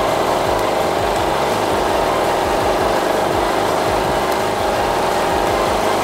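WAKITA HPG2300is inverter generator's four-stroke engine running at a steady, unchanging speed with its economy switch turned on: the engine does not throttle down, so the economy mode is not responding.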